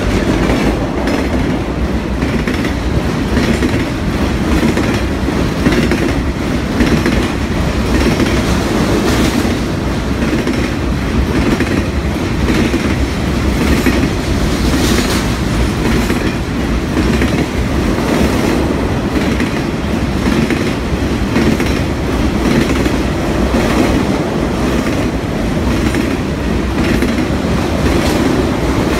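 Welded rail train's rack cars, loaded with long rail, rolling past at about 40 mph: a steady loud rumble of wheels on rail with repeated clicks as the trucks pass.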